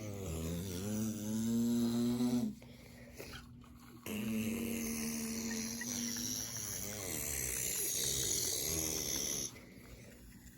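A person imitating a pickup truck's engine with their voice, a humming drone. It rises in pitch for about two and a half seconds, as if the truck is pulling away, then breaks off. It starts again about four seconds in and holds a steady pitch for some five seconds.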